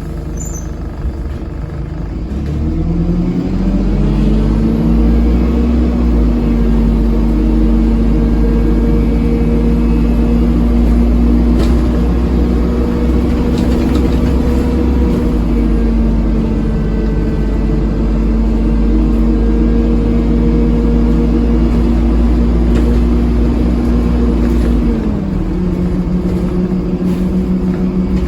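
Loud engine of a Dennis Dart SLF bus with an Allison 2100 four-speed automatic, heard from inside the bus: the revs climb about three seconds in as it pulls away, hold steady for some twenty seconds, then drop to a lower pitch about 25 seconds in as the gearbox changes gear.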